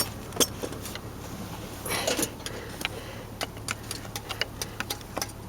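Scattered small clicks and rattles from hands working at the steering column, prying at the plastic locking tabs of the multifunction switch's wiring connectors, with a denser rattle about two seconds in.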